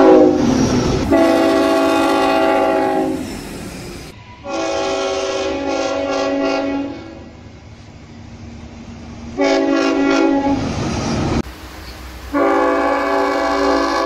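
Queensland Rail Tilt Train's horn sounding several notes at once in a series of separate blasts, four or five in all, each one to two and a half seconds long. The rush of the train passing close by comes just after the start.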